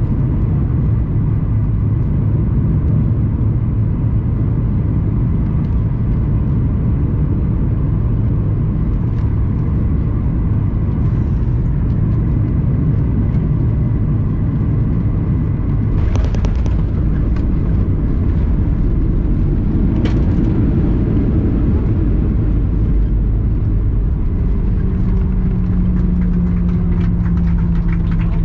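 Cabin noise of a Ryanair Boeing 737-800 landing, heard from a window seat: a loud, steady rumble of the engines and airflow. A sharp knock about 16 seconds in, which fits the firm touchdown, is followed by a second knock about 20 seconds in, and a new steady hum comes in about 24 seconds in.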